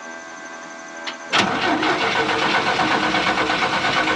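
The 1968 GMC C4500 dump truck's 305 V6 engine being started on a no-start truck: the starter kicks in with a sudden jolt about a second and a half in, and the engine turns over with a loud, steady, rhythmic chug.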